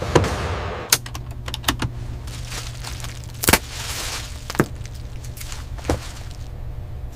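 Workshop handling sounds: a handful of sharp clicks and taps, the loudest about three and a half seconds in, with brief rustles, over a steady low hum.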